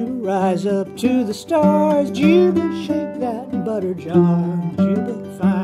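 Homemade guitar with a goatskin resonator, the Loon Goatar, played clawhammer style in an open banjo tuning: a steady low drone rings under wavering, sliding higher notes.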